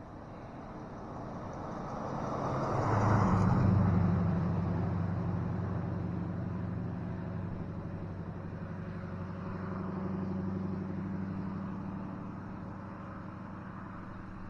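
A motor vehicle driving past, its engine and tyre noise swelling to a peak about three to four seconds in, then fading. A second, gentler swell comes around ten seconds in.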